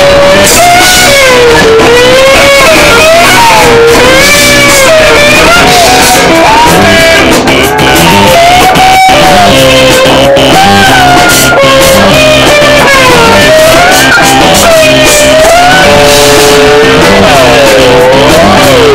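Loud live rock band: an electric guitar plays a lead line of notes bending and wavering up and down over bass and drums.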